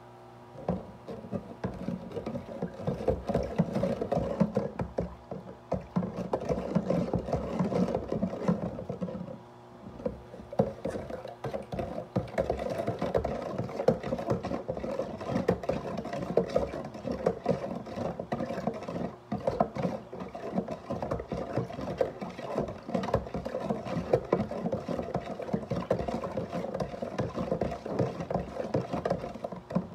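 Plastic container scraping and rattling as orange juice is made in it by hand, a steady, irregular run of small knocks and rubbing sounds. It pauses briefly about nine seconds in.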